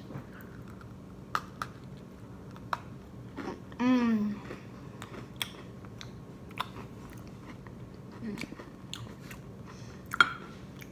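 A person chewing and biting food close to the microphone, with scattered small clicks and crunches. A short hummed "mm" comes about four seconds in, and a sharp tap near the end.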